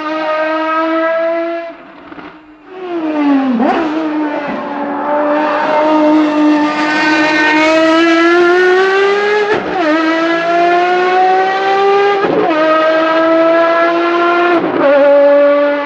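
Ferrari FXX Evolution's V12 engine at full throttle, pulling through the gears. Its pitch climbs in each gear and drops sharply at the upshifts, about four, ten, twelve and fifteen seconds in, after a brief dip in level about two seconds in.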